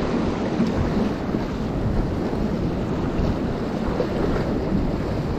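Steady wind noise on the microphone over the wash of surf against a jetty.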